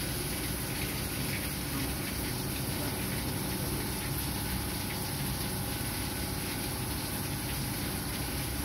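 Citizen M16 Swiss-type CNC sliding-headstock lathe running a cut, with cutting fluid flooding over the spinning workpiece: a steady machine hum under the wash of coolant.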